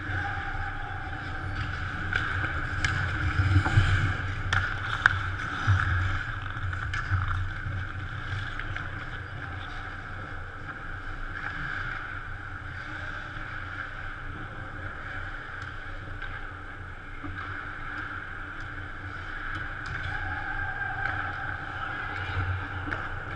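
Indoor ice rink during a hockey game: a steady hum over a low rumble, with a few sharp clacks of sticks and puck in the first several seconds, when it is loudest.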